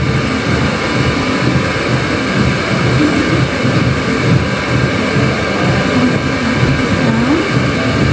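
Handheld hair dryer running steadily: an even rush of air with a faint high motor whine.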